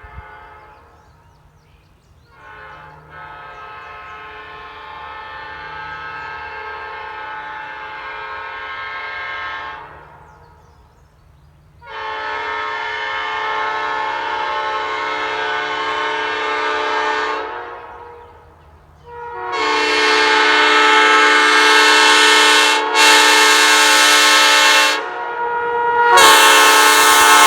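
New-cast Nathan Airchime P5 five-chime locomotive air horn sounding its chord in long blasts. The first lasts about eight seconds, then come two blasts of about six seconds each, each louder than the one before. A fourth, loud blast starts near the end.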